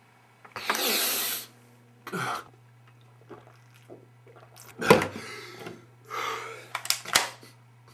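A man snorts hard through his nose for about a second, then draws a short gasp. Later a glass bottle knocks down onto a table, followed by a rough breath out after a swig of liquor and two sharp clicks near the end.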